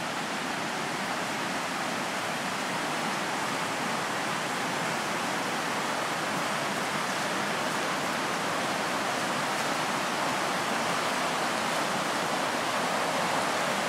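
Mountain river in spate rushing over rocks in white-water rapids, a steady rush of water; the river is swollen from heavy recent rain.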